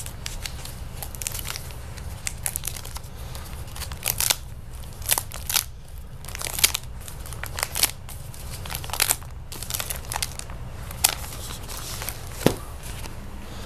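Plastic sleeve pages of a CD binder crinkling and flapping as they are flipped through by hand, with irregular sharp rustles, and a single knock near the end as the binder is closed.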